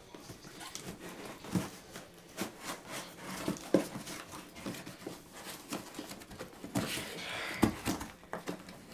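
A cardboard shipping box being handled and pried open by hand: irregular rustling and scraping of cardboard with a series of light knocks and a few sharper thuds.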